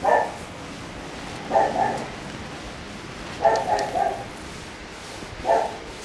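A dog barking in short bouts about every two seconds, four times, over a steady low hiss.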